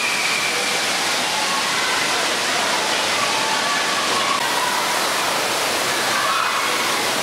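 Steady rush of falling and splashing water in an indoor water park pool area, with faint voices of bathers mixed in.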